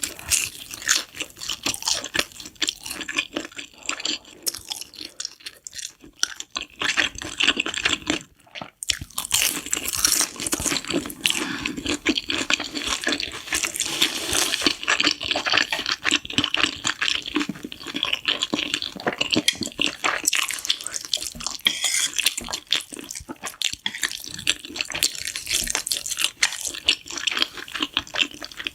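Spicy noodles being eaten close to the microphone: wet slurping and chewing noises, with a short break about eight seconds in.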